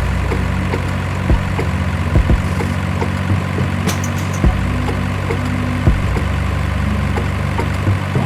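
Engine idling, a steady low hum, with several sharp knocks scattered through it.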